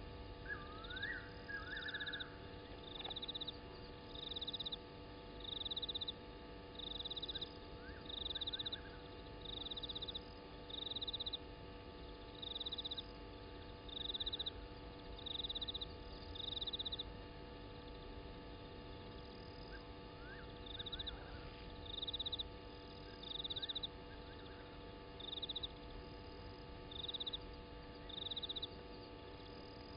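Night chorus of a calling animal: a short, high, pulsed chirp repeated about every second and a half, with a few fainter rising calls now and then. A steady faint electrical hum lies underneath.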